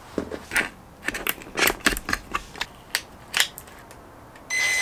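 Clicks and taps of a bit being fitted into the chuck of a cordless drill. Near the end the drill's motor spins up with a steady whirring whine.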